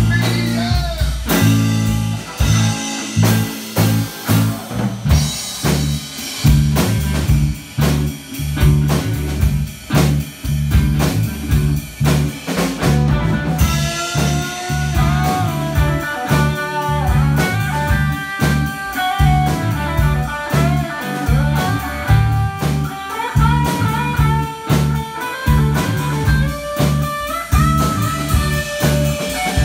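Rock band playing live in a room: drum kit, bass guitar and electric guitars, with no singing. From about 14 seconds in, a lead electric guitar plays a solo line with bent notes over the drums and bass.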